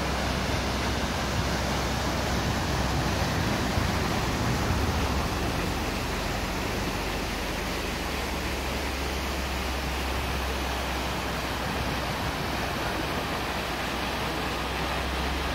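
Water from the Fontana dell'Acqua Paola pouring from its spouts into the large stone basin: a steady rush of falling water.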